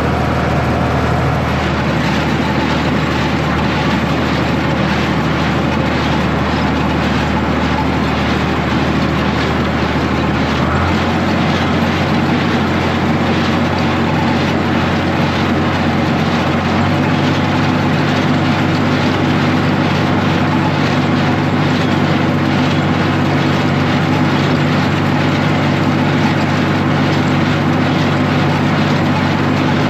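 Tractor engine running steadily under load. Its speed steps up twice, about a third of the way in and again a little past halfway.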